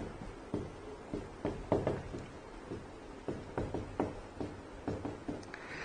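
Writing on a board: about a dozen light, irregular taps and short strokes, fairly quiet.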